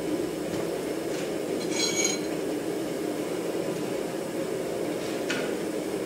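A steady low workshop drone, with a single ringing metallic clink of steel on steel about two seconds in and a faint click near the end.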